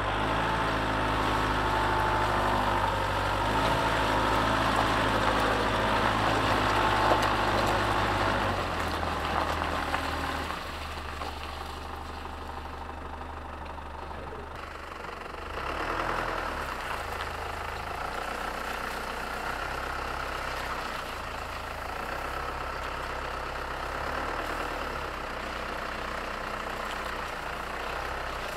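Mitsubishi Pajero V60's 3.2 DI-D four-cylinder turbodiesel running as the vehicle drives slowly off-road, heard from a camera mounted outside by the wheel. It is louder for about the first eight seconds, then settles lower and steady.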